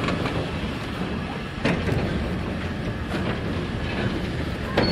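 Goods train of steel mineral wagons and a brake van rolling slowly, its wheels knocking over rail joints about every second and a half above a steady low rumble.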